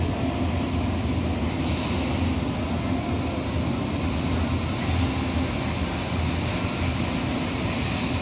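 Steady background noise of a large warehouse store: an even low hum with a hiss over it, unchanging throughout.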